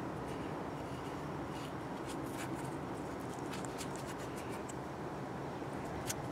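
Faint rustles and small scattered clicks of hands handling a removed suspension ball joint, over a steady low background hum.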